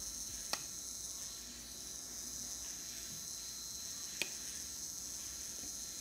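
Relay inverter running: a 5 V relay switching a 12 V centre-tapped transformer, giving a steady high-pitched buzz, with two sharp clicks, about half a second in and about four seconds in.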